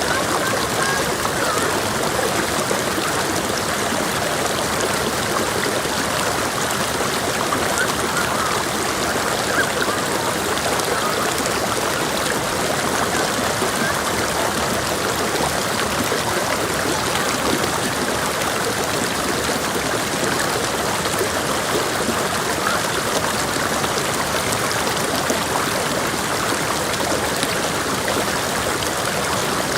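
Mountain creek water flowing and babbling over rocks, a steady rushing of running water.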